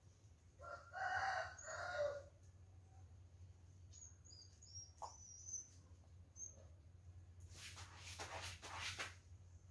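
A rooster crows once, in two parts, about a second in. Near the end comes a second or two of scratchy rustling.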